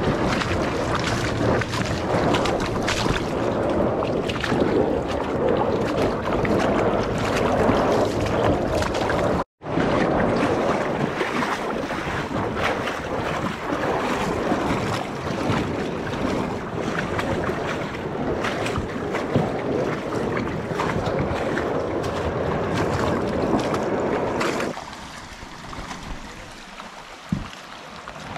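Rushing shallow river water and wind buffeting the microphone, with scattered knocks and splashes from kayaks moving through the shallows. The sound cuts out for an instant about a third of the way in. Near the end it drops off sharply to a quieter trickle with a few clicks.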